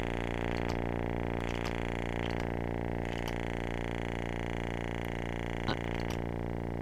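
Contrabass clarinet sample holding its lowest C: one steady low note, rich in overtones, with a few faint clicks over it.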